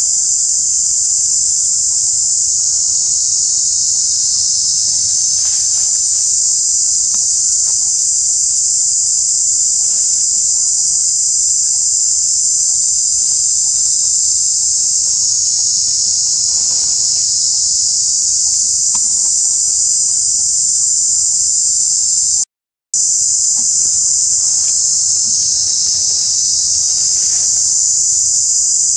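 Dense insect chorus: a steady, high-pitched shrill drone that breaks off for about half a second roughly three-quarters of the way through.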